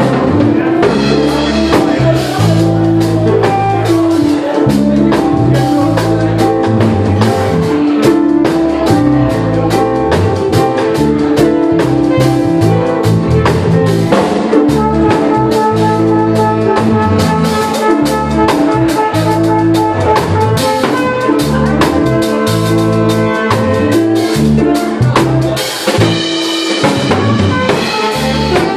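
Jazz fusion band playing live: a drum kit struck steadily under a bass line and sustained melodic instruments.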